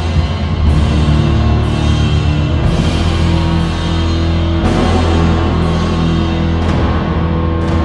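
Background rock-style music with drums and a deep bass that holds each note for a second or more.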